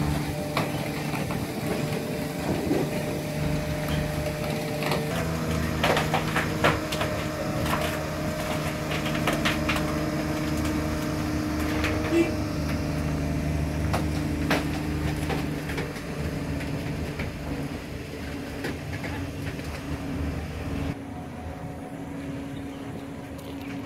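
Heavy diesel engine of a 16-axle self-propelled modular transporter running steadily under load as it creeps along with a 220-tonne HRSG module. It makes a droning hum with scattered knocks and creaks. The sound drops noticeably near the end.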